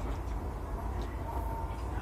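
A steady low rumble, with a few faint clicks of a spoon against a plastic plate.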